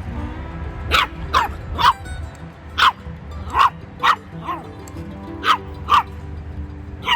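A puppy yipping: about ten short, high-pitched yips, each dropping in pitch, coming in an uneven run.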